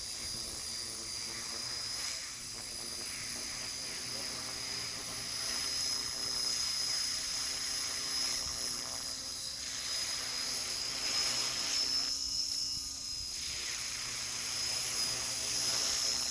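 Align T-Rex 600 radio-controlled model helicopter in flight: a steady high-pitched whine with rotor noise that grows louder and fades a few times as it flies around.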